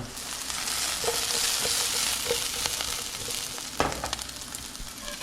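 Food sizzling in a frying pan: a steady hiss with faint crackles that fades over the last couple of seconds, and one sharp knock about four seconds in.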